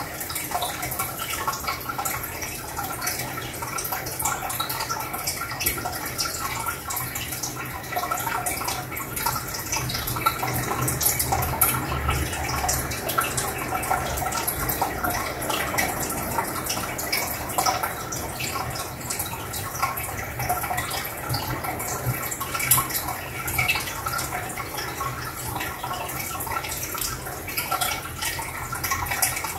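Air-driven aquarium sponge filter bubbling steadily, a continuous stream of air bubbles rising up its lift tube with many small pops and trickles, over a low steady hum.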